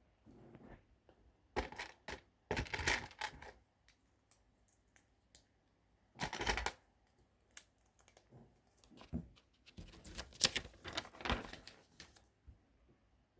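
Small plastic LEGO pieces clicking and clattering as they are handled and snapped together, in several short bursts: around the second and third seconds, again about six seconds in, and a longer run from about ten to twelve seconds in.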